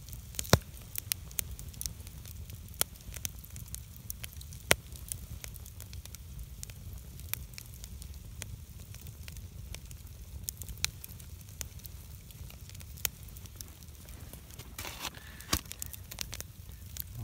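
Wood campfire crackling, with scattered sharp pops over a low steady rumble of the flames. The loudest pops come about half a second in and about five seconds in, and there is a short hiss near the end.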